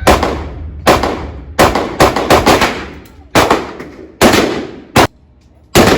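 A string of about ten gunshots, irregularly spaced at roughly half-second to one-second intervals, each sharp crack trailing off in a short echo.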